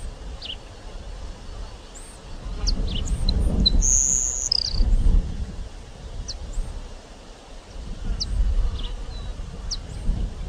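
Grassland sparrow singing: one short, thin, very high insect-like song about four seconds in, with brief high chips scattered through. Underneath, a low rumble swells and fades, the sound of wind on the microphone.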